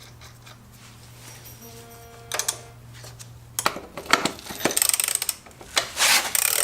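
Metal wrench clinking and rasping on a motorcycle's chain-adjuster lock nuts as they are tightened down. The clicks come in quick bursts from about halfway through, after a low steady hum that stops.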